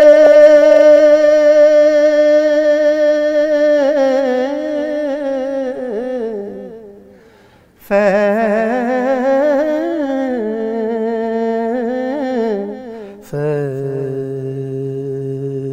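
Male ghazal singer's voice in a wordless passage: a long held note that breaks into wavering melismatic runs and fades out, then after a brief gap a new wavering phrase begins. Near the end a lower steady note comes in beneath the voice.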